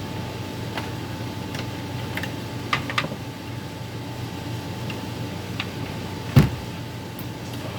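Scattered light clicks of plastic gears and parts being handled as the side gears come off an HP LaserJet M401n laser printer, with one louder knock a little past six seconds in, over a steady low hum.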